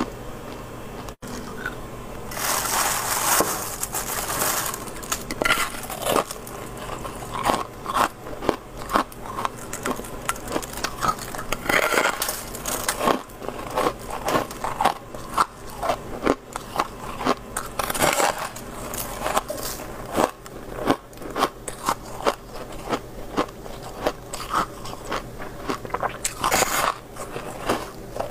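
Freezer frost being bitten and chewed: a dense run of sharp, squeaky crunches as the packed frost breaks between the teeth. A few longer, louder crackling bursts stand out, about three seconds in, then near the middle, two-thirds of the way through and near the end. A faint steady hum sits underneath.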